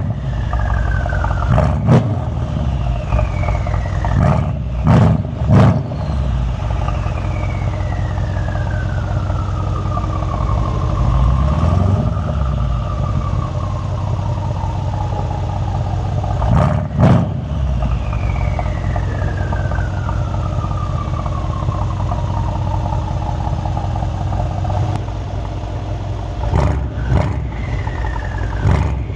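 Mercedes-AMG E63 S twin-turbo V8 running, given short sharp revs several times. Between them a high turbo whistle slides slowly down in pitch over several seconds as the turbos spool down.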